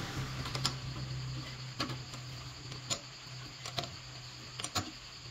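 Sharp metal clicks of a chuck key turning in a four-jaw lathe chuck as its jaws are tightened onto a wooden blank, about seven clicks, some in quick pairs, over a steady low hum.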